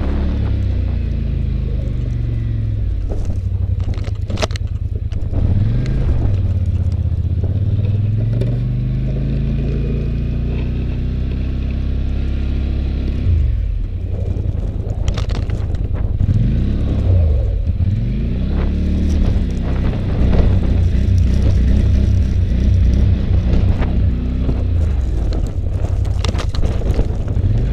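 Polaris Sportsman 850 ATV's twin-cylinder engine revving up and falling back again and again while plowing snow, with a few sharp knocks along the way.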